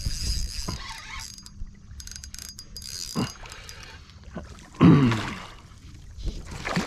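Spinning fishing reel being cranked, its mechanism whirring and clicking, as a small bass is reeled to the kayak and splashes at the surface. A short low vocal sound stands out about five seconds in.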